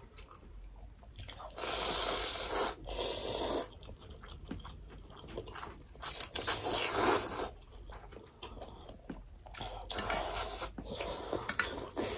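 People slurping noodles from thukpa broth in several long slurps, with quieter chewing between them.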